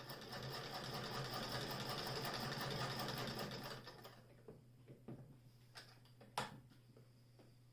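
Singer 28K vibrating-shuttle sewing machine turned by its hand crank, a rapid, even clatter of stitching that stops about four seconds in. A few separate clicks and knocks follow, the loudest about six seconds in.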